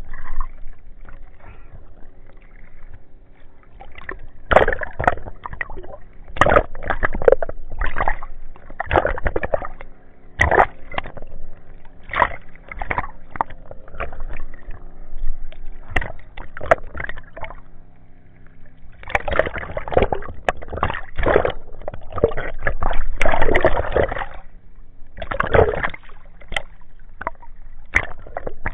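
Water sloshing, splashing and gurgling around an action camera at and just below the sea surface as a swimmer moves, in irregular bursts that come thickest about two-thirds of the way through, over a faint steady hum.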